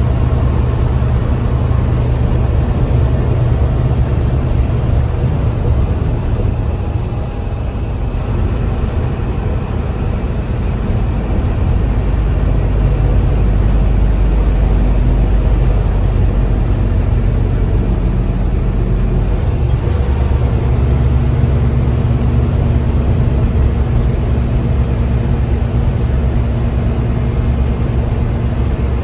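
Mercedes-Benz bus diesel engine pulling hard, heard from the driver's cabin, with a high turbocharger whistle over the engine note. The engine eases off briefly about seven seconds in and again near twenty seconds, and each time the turbo whistle rises again as it pulls back up.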